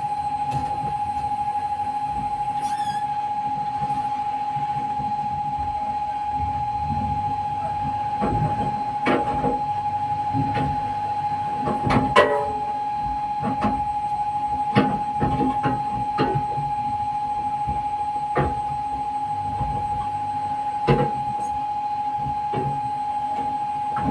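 A steady high-pitched tone sounds throughout, with scattered knocks and thumps from about eight seconds in, the loudest around twelve seconds.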